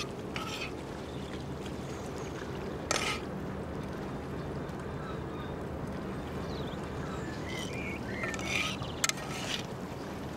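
Outdoor waterside background: a steady low hum with a short knock about three seconds in, a click near the end, and a few brief higher calls near the end.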